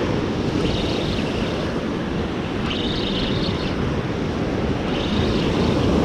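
Surf washing in and wind on the microphone, with a spinning reel cranked in short spells about every two seconds, a high whir each time, as a hooked fish is brought in.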